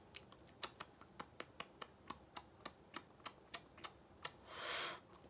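Mouth smacking in quick, faint clicks, about four or five a second, as lips and tongue taste freshly applied lip gloss. A short breath comes near the end.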